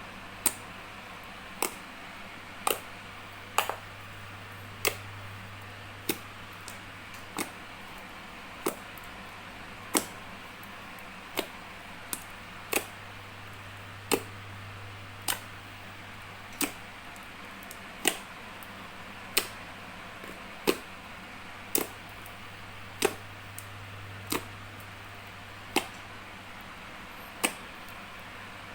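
Sharp popping clicks from clear dish-soap slime being pressed and poked, one roughly every second and a bit, over a steady low hum.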